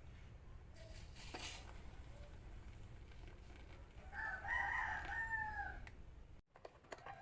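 A rooster crows once, about four seconds in, a call of nearly two seconds that drops in pitch at its end, over a low steady hum.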